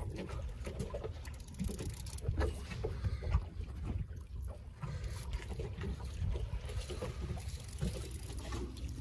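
Small waves lapping and slapping against a boat's hull on choppy water, with a steady low wind rumble on the microphone and scattered light knocks.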